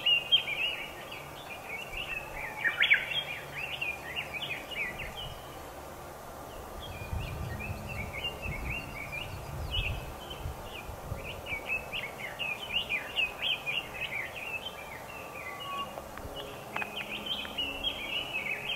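Fast, chattering bird song of short chirps and warbled notes, taken to be a red-billed leiothrix. It runs nearly without a break, thinning briefly about six seconds in.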